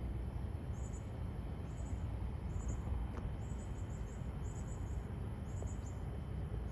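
Insects chirping in short, high-pitched clusters about once a second, over a steady low background rumble.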